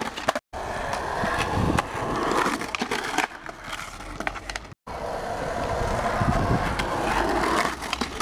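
Skateboard wheels rolling over a smooth plaza surface, with several sharp clacks of the board hitting down. The sound cuts out abruptly twice, at edits in the footage.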